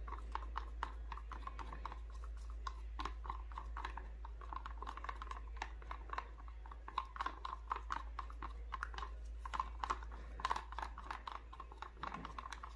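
A stir stick clicking and scraping against the inside of a small plastic cup while two-part resin is mixed: a quick, uneven run of light clicks, several a second.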